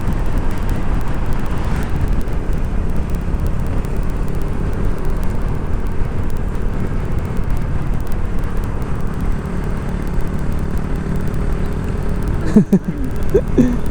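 Motorcycle engine running steadily at cruising speed, under a continuous rush of wind and road noise.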